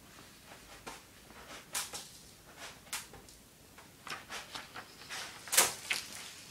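Cat pawing and scratching at the litter in a plastic litter box: a string of short gritty scrapes and rattles, with one louder clatter about five and a half seconds in.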